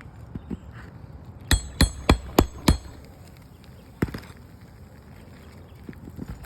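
Hammer blows during roof repair: five quick strikes with a metallic ring about a second and a half in, then one more strike about four seconds in.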